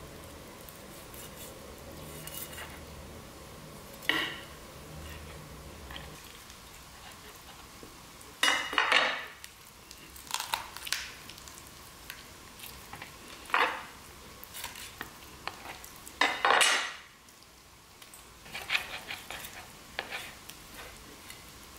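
Chef's knife cutting and scraping against a wooden cutting board as a raw pheasant is butchered, with irregular knocks and scrapes, the loudest a little over halfway through.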